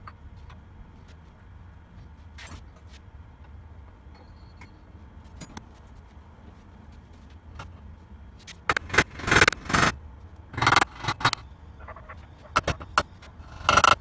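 Steel sprockets, washers and shaft parts of a Scott Bonnar Model 45 cylinder mower clinking and scraping as they are fitted by hand onto the side-plate shafts. It is quiet at first, then from about nine seconds in comes a run of loud metallic rattles and knocks, with a few sharp taps and one loud clatter near the end.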